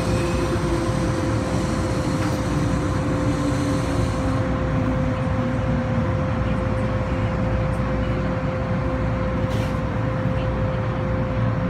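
Hong Kong MTR M-Train electric multiple unit slowing into a station, heard from inside the car by the doors. Its motor whine falls in pitch over the first half, over steady running rumble and a constant steady tone.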